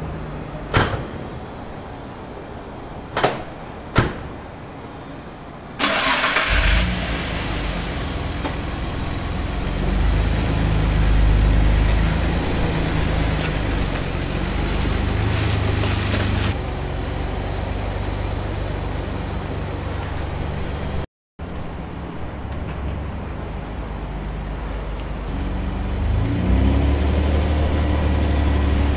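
Nissan Skyline GT-R R33's twin-turbo straight-six, breathing through a custom exhaust, starts about six seconds in after a few sharp clicks, then runs with several rises in revs, around ten and fifteen seconds in and again near the end. It cuts out briefly about two-thirds of the way through.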